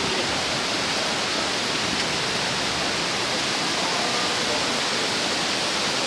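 Steady roar of Wachirathan Waterfall in heavy rainy-season flow, an even, unbroken rush of falling water.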